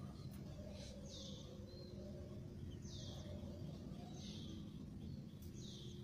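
Oriental magpie-robins giving four short, harsh calls, each about half a second, spaced a second or so apart, over a steady low background rumble.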